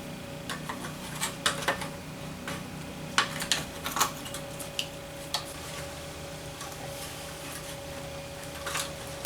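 Scattered sharp metallic clicks and clinks as spring clips holding a truck seat cover are pried off the metal seat frame, in a few short clusters over a faint steady hum.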